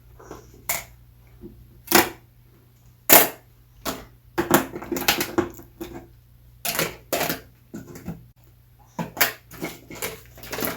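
A series of irregular sharp clicks and knocks, some single and some in quick clusters, over a faint steady low hum.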